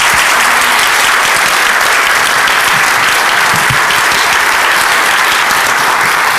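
Audience applauding: steady, dense clapping from a full house.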